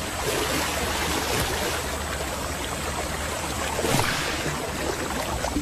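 Splashing and churning river water as several crocodiles tear at a wildebeest carcass, with a sharper splash about four seconds in.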